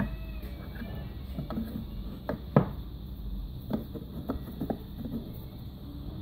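Scattered light knocks and clicks of a turned wooden recorder blank being seated in the metal clamp and centre of a windway cutter jig, the loudest about two and a half seconds in.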